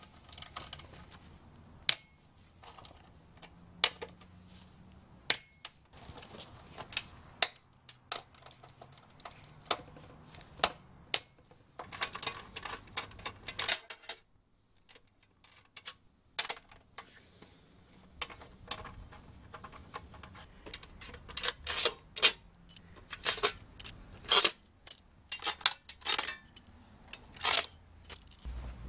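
Irregular sharp metallic clicks and clinks of a hand tool and bolts on the steel top plate of a lithium-ion battery module stack. The clicks come in denser runs about twelve seconds in and again through the last third.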